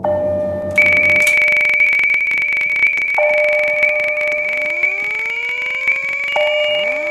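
Fire alarm sounding: a steady high electronic tone over a lower tone that restarts about every three seconds. Rising whooping sweeps join in about four and a half seconds in and again near the end, with short higher beeps between them.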